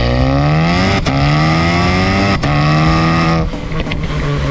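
Exhaust of a tuned Škoda Octavia vRS 245's turbocharged 2.0-litre EA888 four-cylinder, through a Milltek downpipe, an OEM Golf R midpipe and a Remus axle-back, under hard acceleration. The pitch rises and drops sharply twice at quick dual-clutch upshifts, with a short crack at each shift. About three and a half seconds in it drops a step with a couple of sharp cracks, then runs steadier.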